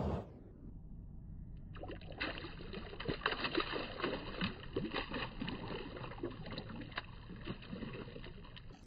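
Shallow lake water sloshing and splashing over rocks around a released smallmouth bass, as a run of small, irregular splashes that starts about two seconds in.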